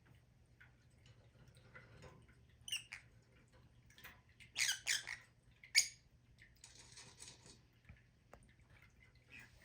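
Pet lovebirds giving short, high, squeaky chirps: one a little under three seconds in, a quick cluster around five seconds, and the loudest sharp chirp just before six seconds, followed by a brief scratchy noise. A faint steady hum lies underneath.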